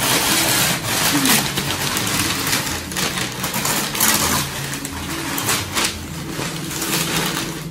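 Sheets of brown kraft packing paper crinkling and rustling as they are pulled out of a cardboard box, a continuous dense crackle with sharper crunches every second or so.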